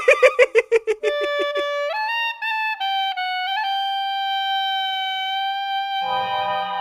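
Comic cartoon music played on a woodwind: a rapid stuttering run of short notes, then a climb in a few steps to one long held note. Lower accompaniment comes in near the end.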